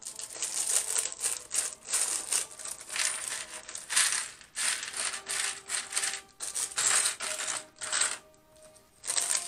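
Plastic Lego bricks clattering as they are tipped out of their bag and moved about in a cardboard tray, with the plastic bag crinkling. A run of short clattering, rustling bursts that pauses briefly near the end.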